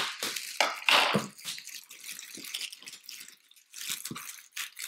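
Clear plastic wrap crinkling and rustling in irregular bursts as it is cut with scissors and pulled off a large cardboard box.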